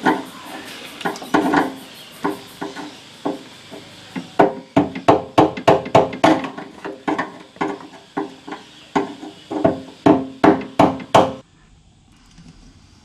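Hammer blows knocking round the metal locking ring of a Triumph TR7's fuel gauge sender on the petrol tank, each strike ringing. A few scattered taps, then a quick run of about three strikes a second that stops abruptly near the end.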